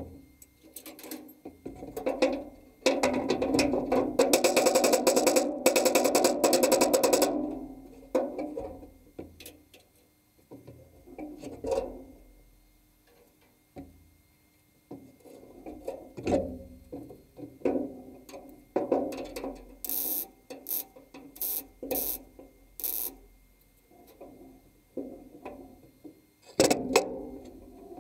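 A hammer knocking on the sheet-steel repair panel of a classic Mini's lower bulkhead to bring it flush, with clatter of tools and the panel being handled. There is a dense, loud run of rapid knocks a few seconds in, and separate sharp strikes about half a second apart later on.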